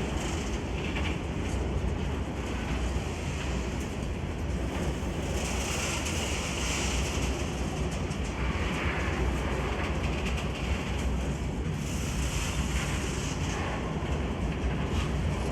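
A train moving through the station with a steady rumble, and wind buffeting the microphone.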